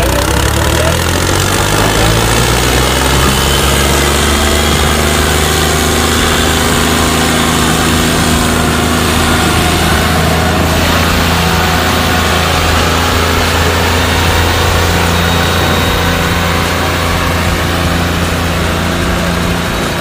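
A tractor engine running steadily at a low, even pitch.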